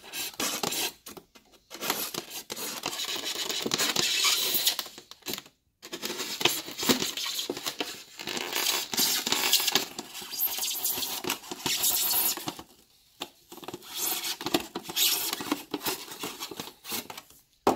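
Utility knife blade sawing through an expanded polystyrene foam cooler lid: a scratchy, squeaky rasping in uneven strokes as the blade is drawn along the cut, with a few short pauses.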